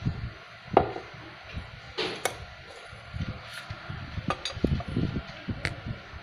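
Screwdriver tapping, clicking and scraping against a small motorcycle engine's aluminium cylinder head as its cover is worked open: irregular metal clinks and knocks, the sharpest about a second in and about two seconds in.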